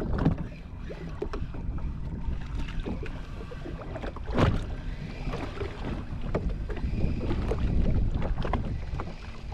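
Wind buffeting the microphone and water noise around a jet ski at sea, a rough low rumble with scattered knocks and splashes, the sharpest about four and a half seconds in.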